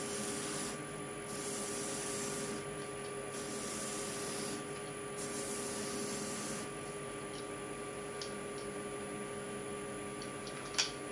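Wood lathe motor humming steadily while a turned wooden ball is pressed against a spinning sanding pad on the spindle, giving a hissing rasp in four strokes of about a second each. The sanding stops about two-thirds of the way in, leaving the motor hum, and there is one sharp click near the end.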